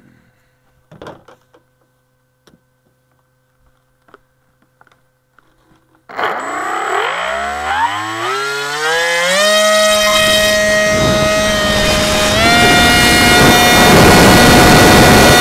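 A few faint knocks, then the electric motor and propeller of an upgraded Go Discover FPV plane spool up about six seconds in, the whine rising steeply in pitch over about three seconds as it throttles up for takeoff. The motor then holds a steady high whine, steps up to a higher pitch near the end as the plane climbs, with a rush of wind over the airframe.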